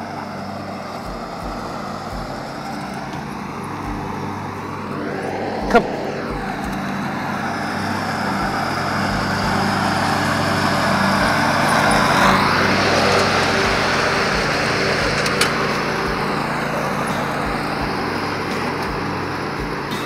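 Riding lawn mower engine running steadily with its cutting deck, growing louder as it passes close, loudest about halfway through, then easing off a little. A sharp knock about six seconds in.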